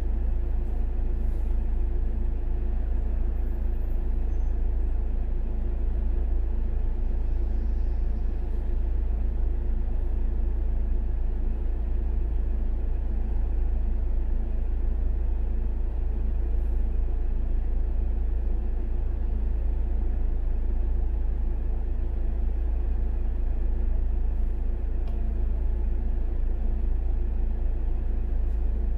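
A car's engine idling while stopped in traffic, heard from inside the cabin as a steady deep rumble with a faint even hum.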